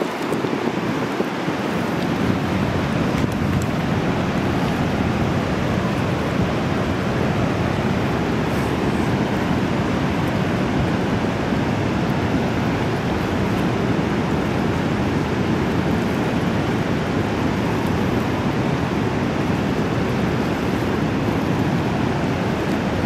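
Steady roar of Niagara Falls and the rushing, churning river water below it, an even rush of water.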